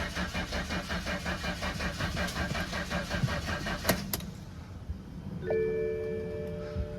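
BMW M54 inline-six being cranked by the starter, turning over in an even rhythm without firing: a crank-no-start that the owner traces to getting no signal from the crank position sensor. The cranking stops with a couple of sharp clicks about four seconds in. Near the end, a steady electronic warning chime sounds.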